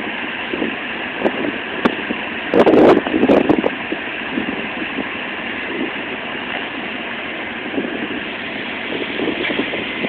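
Wind gusting and buffeting a phone's microphone over a steady rushing noise, with the strongest gust about three seconds in.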